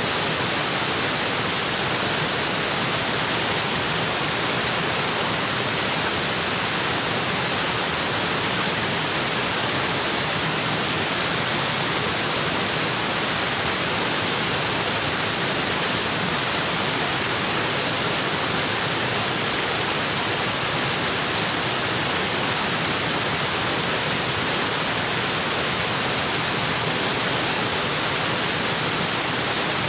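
Waterfall in a tropical forest, water pouring onto rocks in a steady, unbroken rush.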